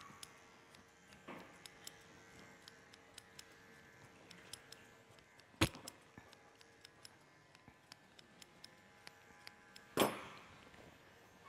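Grooming scissors snipping in a scatter of light metallic clicks as a Shih Tzu's coat is trimmed scissor-over-comb, with two much louder sharp knocks about five and a half and ten seconds in.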